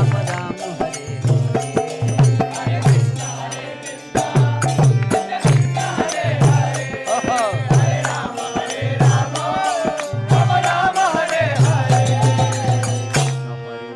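Devotional mantra song: a steady, repeating drum beat, joined about four seconds in by a voice chanting a wavering melody. The music briefly drops out near the end.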